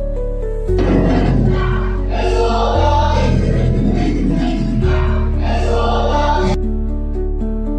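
Music: sustained keyboard chords over a steady bass, with a choir-like vocal passage from under a second in until about six and a half seconds in, where it cuts off.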